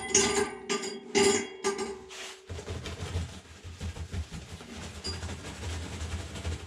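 Small electric grain mill grinding feed grain into fine meal: a steady motor hum with rattling grain, switched off about two and a half seconds in. Then low irregular bumps and rustling.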